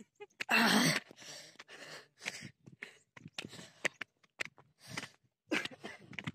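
A person climbing a hillside breathes out hard close to the microphone about half a second in, then footsteps scuff and crunch on dry grass and loose soil.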